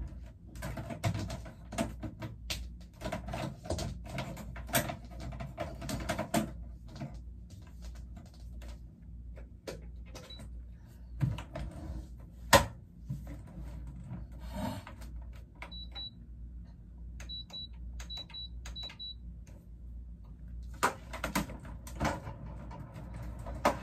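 Handling of a portable LG appliance as it is set up and switched on: irregular plastic clicks and knocks, then a few short high electronic beeps from its control panel as buttons are pressed, with one sharp click near the middle.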